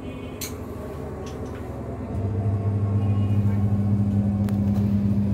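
Washing machine motor running with a steady low hum. It drops away, then starts up again about two seconds in. There is a single sharp click about half a second in.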